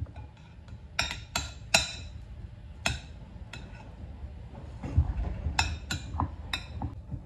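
A metal spoon clinking against a glass baking dish as mashed potato is scooped and knocked off the spoon: a string of sharp, briefly ringing clinks, with a duller knock about five seconds in.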